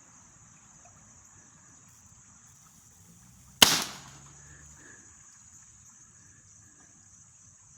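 A single shot from a Byrna Pistelle X68 launcher firing a .68 calibre kinetic plastic ball: one sharp crack about three and a half seconds in that dies away within half a second. A steady faint high insect drone lies underneath.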